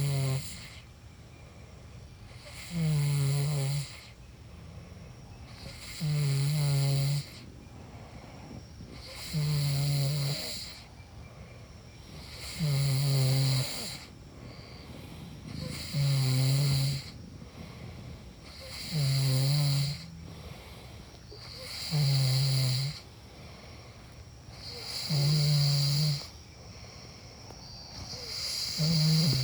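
A person snoring in a steady rhythm, one snore about every three seconds, each lasting about a second, with a low rattling buzz and a breathy hiss.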